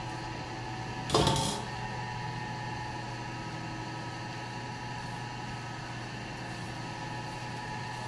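One short knock about a second in, from a stainless steel bowl being tapped as sugar is tipped out of it into another steel bowl, over a steady electrical hum.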